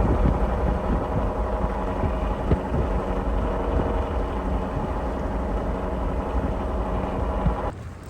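A vehicle engine running steadily, with a deep rumble and a couple of brief knocks; it drops away abruptly near the end.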